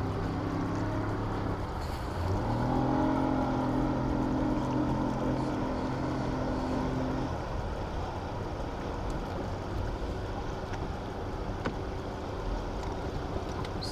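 A boat's outboard motor runs with a steady drone. Its pitch rises about two seconds in, and it drops away around seven seconds, over steady wind and rushing-water noise.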